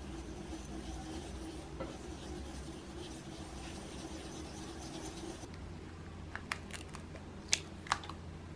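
Kitchen food-prep handling sounds: a soft, steady rubbing or scraping for about five seconds, then several sharp clicks or taps, two of them louder near the end.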